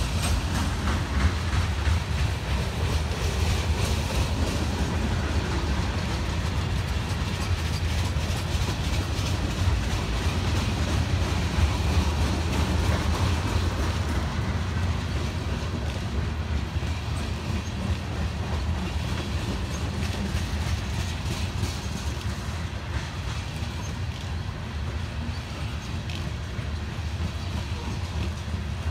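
Freight cars of a mixed manifest train, covered hoppers and tank cars, rolling past close by: a steady low rumble with repeated wheel clicks over the rail joints.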